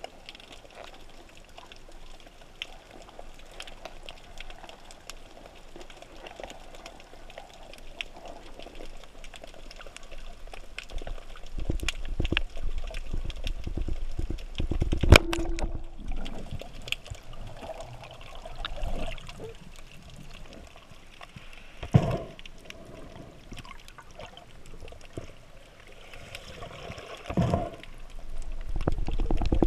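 Underwater ambience picked up by a camera housing on a speargun: water rushing and gurgling past as the diver moves, with scattered clicks and two sharp knocks, one about halfway through and one about three-quarters of the way through.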